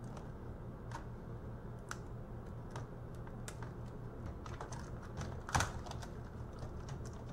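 Scattered small clicks and taps of laptop parts, sheet metal and plastic, being handled and pried apart, with one louder clack about five and a half seconds in. A steady low hum runs underneath.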